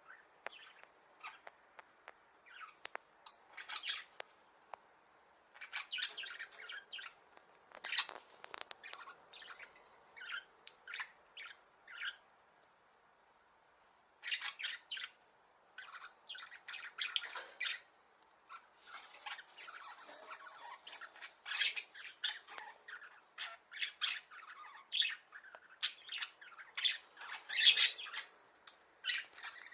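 Pet budgerigars chattering: runs of short chirps and squawks, with a quiet gap of about two seconds midway.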